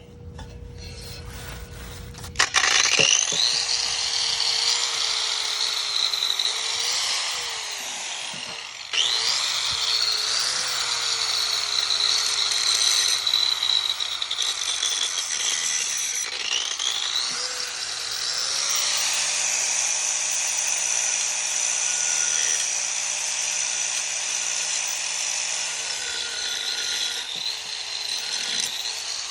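Handheld electric power tool running against the metal of a car exhaust pipe, sanding and cleaning it for repair. It starts about two and a half seconds in, and its motor pitch sags and recovers as it bites into the pipe, with a brief let-up about nine seconds in.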